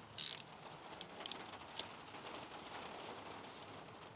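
Hand tools on the camshaft bearing cap nuts of a VW 16V cylinder head: a short rasp just after the start, then a few light metal clicks, as the caps are loosened a little at a time.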